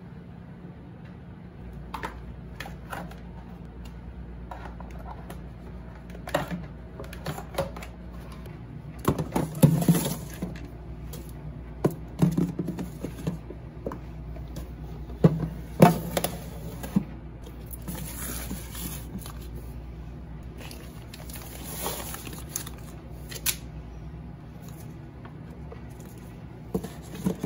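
Plastic food containers and packages being handled and set down inside a small refrigerator's freezer compartment: scattered knocks, clicks and rustles over a steady low hum.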